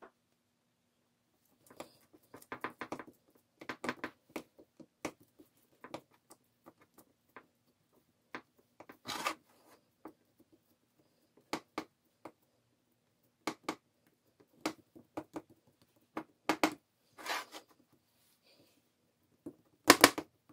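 A metal spoon and a silicone spatula scraping and tapping against a stainless saucepan and a ceramic loaf dish as thick cooked mung bean paste is scooped in and pressed down: a string of short, irregular scrapes and clicks, the loudest near the end.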